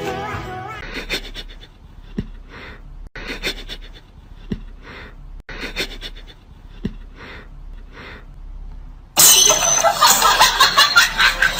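Cat sniffing at a socked foot: short breathy sniffs about once a second. About nine seconds in, a sudden much louder harsh noise takes over.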